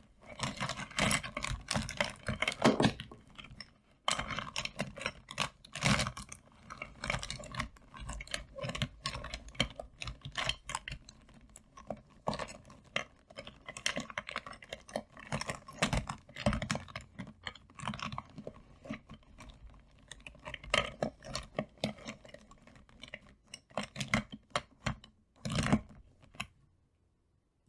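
Hands rummaging through a wooden bowl full of plastic markers and pens, the barrels clicking and clattering against each other in a dense, irregular stream. There is a brief lull about four seconds in, and it stops shortly before the end.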